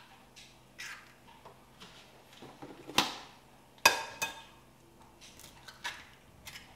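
Eggs being cracked against a glass mixing bowl: a few sharp taps of shell, the loudest about three and four seconds in, with lighter clicks as the shells are pulled apart.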